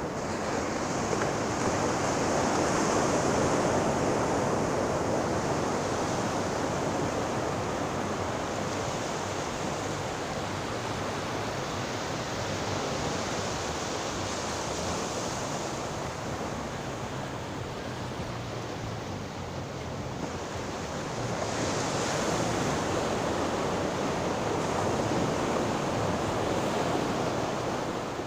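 Ocean surf: a continuous wash of waves, swelling louder near the start and again about three-quarters of the way through.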